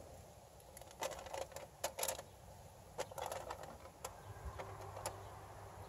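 Scattered light clicks and crinkles as venison burger patties are turned by hand on a sheet of heavy-duty aluminium foil on a grill, over a faint hiss. A faint low hum comes in about four seconds in.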